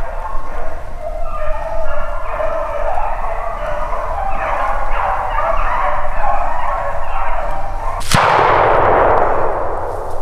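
A pack of beagles baying as they run a rabbit, several voices overlapping, then one shotgun shot about eight seconds in, its report rolling on for about two seconds.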